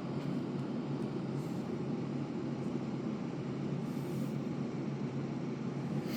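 Steady low hum and rushing noise of a room air conditioner running.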